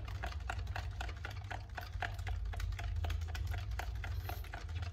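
Light, quick clicks and taps, several a second at an uneven pace, over a low steady hum.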